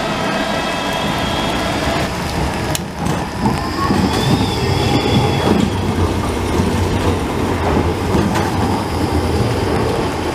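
Electric street tram running close by on its rails: a steady rumble of wheels on track, with a short high wheel squeal about four seconds in.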